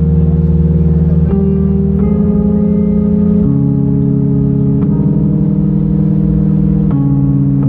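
Live band playing slow, held chords on electric guitar, bass and keyboard, with the chord changing every one to two seconds.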